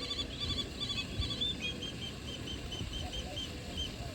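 A small songbird singing: a quick run of high chirps, then a steady series of single evenly spaced chirps, about three a second, over a low rumble.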